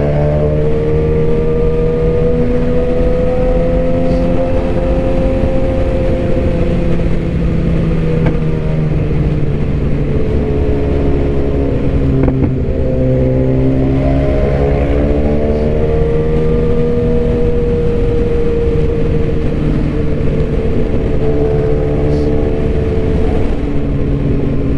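BMW S1000RR's inline-four engine running at highway cruising speed, its note rising and falling gently with the throttle, with a brief dip about halfway through.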